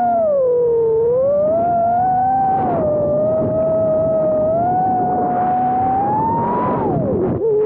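Brushless motors and propellers of a 4-inch freestyle FPV quadcopter whining, the pitch rising and falling with the throttle. Near the end the whine drops sharply, then climbs again.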